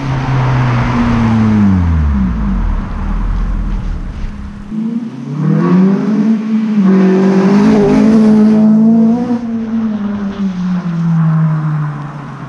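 Honda Civic FN2's four-cylinder engine through a TDI North 3-inch cat-back exhaust as the car drives past on a wet road, with tyre hiss. Its note falls away as it passes, then about five seconds in rises again and holds before dropping off near the end.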